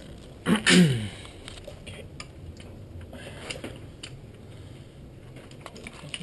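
Light clicks and scrapes of small metal parts being handled at the timing chain tensioner access port on a Nissan VQ35DE engine's front cover. About half a second in there is a brief, loud sound falling in pitch.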